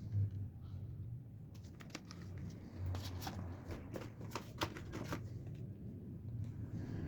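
Hands unpacking and handling computer parts and their packaging: irregular rustling with scattered sharp clicks, over a low steady hum.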